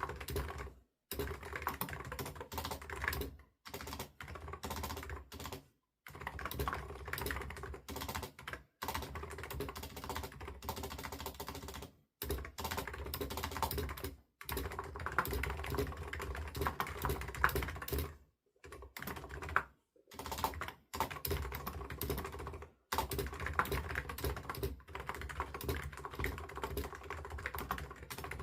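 Typing on a computer keyboard: rapid, continuous keystroke clicks in stretches, cut by brief silent gaps every few seconds.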